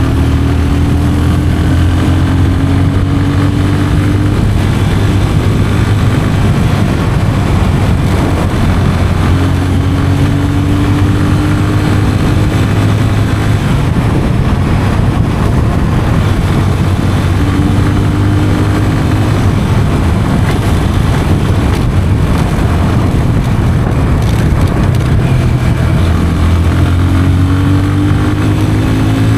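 Yamaha FZ 25's 249cc single-cylinder engine on its stock exhaust, running under way with a steady thumping note. Its pitch climbs gently several times as the bike pulls, easing off in between.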